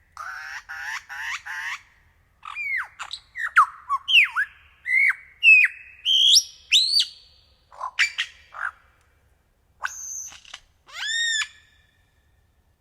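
A bird calling in a varied series of short notes: four quick harsh notes at the start, then clear whistles sliding down and up in pitch, and an arched whistle near the end.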